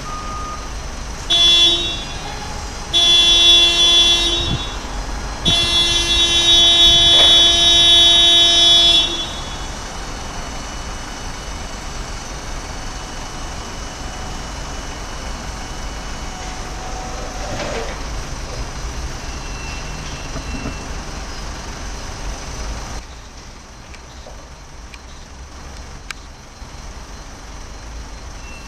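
Hyster A1.50XL three-wheel electric forklift giving three steady pitched buzzes, the last about three and a half seconds long and the loudest, followed by a quieter steady running sound that drops away late on.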